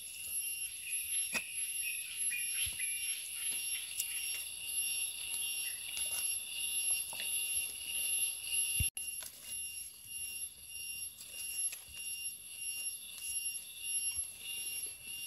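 Insects in the forest droning in steady high-pitched tones, with occasional light knocks and rustles from someone moving through leaf litter.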